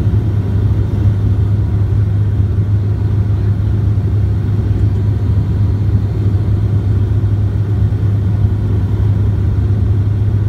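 Cabin noise inside a Bombardier Q400 turboprop airliner on approach with the landing gear down: the propellers and engines make a steady low drone.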